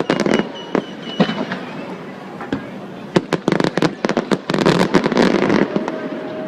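Fireworks going off in quick volleys of sharp bangs and crackles, densest just past the middle, with a few faint whistling tones among them.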